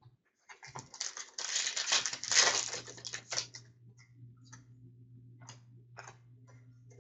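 Trading card pack being opened and its cards handled: about three seconds of crinkly rustling, then a string of light clicks and taps as the cards are flicked through and sorted.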